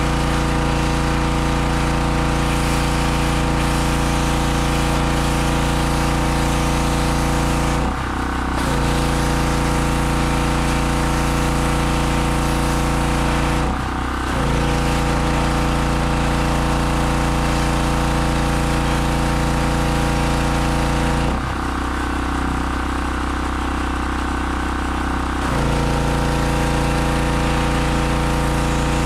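Gas pressure washer with a 160 cc engine running steadily under load, with a hissing spray over the engine note. The spray sound drops out briefly about eight and fourteen seconds in, and again for about four seconds near the end, while the engine keeps running.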